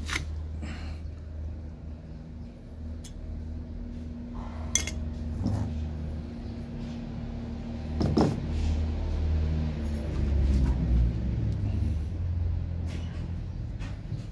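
Metal pliers clicking and knocking against the aluminium casing of a cylindrical LiFePO4 cell as its end is pried open: a series of separate sharp clicks, the loudest about eight seconds in, over a steady low hum.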